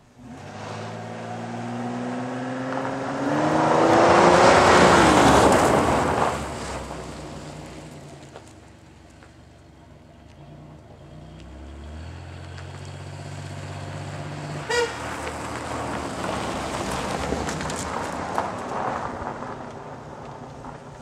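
A 1990 Chevrolet Lumina's engine revs hard, rising in pitch over the first few seconds into a loud rush of tyres spinning and spraying gravel, then eases off. It revs up again with more gravel noise in the second half, and a brief sharp chirp comes about 15 seconds in.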